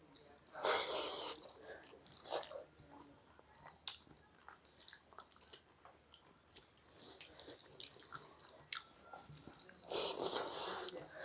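Close-up eating sounds: mouthfuls of rice eaten by hand being chewed with small clicks and smacks. There are two louder bursts of noisy mouth sounds, about a second in and again near the end, as handfuls go into the mouth.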